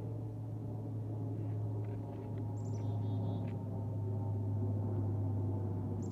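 Aircraft engine giving a steady low drone throughout, with a few high, short bird chirps about halfway through.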